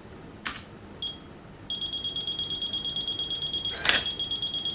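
Brother AX-20 electronic typewriter's buzzer: a short high beep, then a rapid, continuous run of beeping for about three seconds, with a click half a second in and a louder click near the end. The beeping is the typewriter rejecting garbled input, which the owner puts down to the wrong serial speed in the terminal settings.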